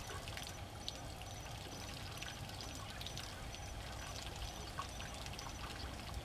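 Water pouring and trickling as an African elephant bull drinks, releasing trunkfuls of water into its mouth. A faint high chirp repeats about twice a second in the background.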